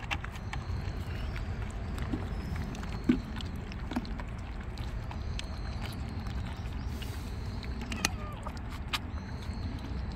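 Kittens eating dry kibble from a plastic dish: scattered small clicks and crunches over a steady low rumble.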